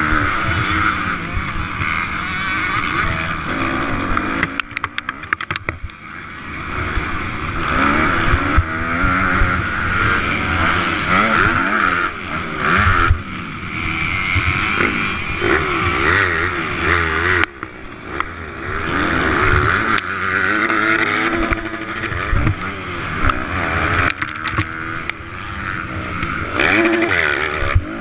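Motocross bike's engine heard close up from a camera on the bike, revving hard and rising and falling in pitch as it is ridden round the track. The throttle is chopped suddenly a few times, with short dips in level.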